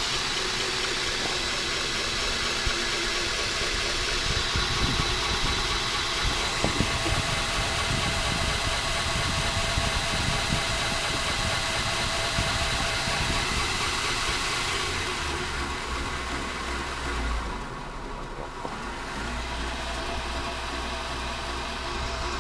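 KMG belt grinder running steadily with a 320-grit silicon carbide belt, motor hum with the hiss of the belt over the wheels. The belt is cut crooked and wanders about 3/16 inch side to side. The sound drops and thins out about two-thirds of the way through.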